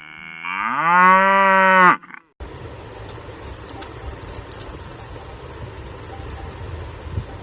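A cow mooing once, one loud call about two seconds long that rises in pitch and then holds. It is followed by an abrupt switch to a steady low rumbling background noise with a few faint clicks.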